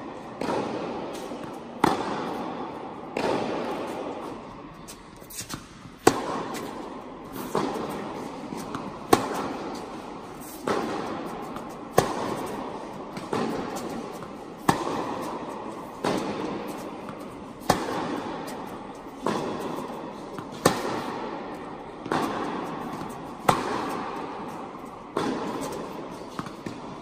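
Tennis ball struck back and forth with rackets in a baseline rally, sharp hits and bounces coming about every one and a half seconds. Each hit echoes through the large indoor tennis hall.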